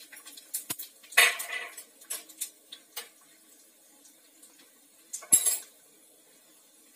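A steel spoon clinking and scraping against a small steel tempering pan as cashews are stirred in ghee, with two louder clanks, one about a second in and another about five seconds in.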